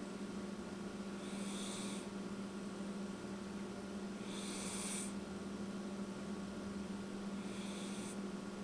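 Domestic cat snoring in her sleep: three hissing snore breaths about three seconds apart.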